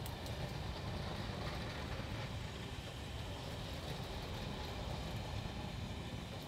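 Passenger coaches of a steam-hauled train rolling slowly past on the rails: a steady low rumble with a few faint clicks.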